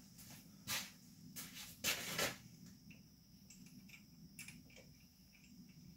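Small screws and a handlebar light-bar mount being handled and fitted by hand: a few short scrapes and knocks in the first couple of seconds, then faint scattered ticks.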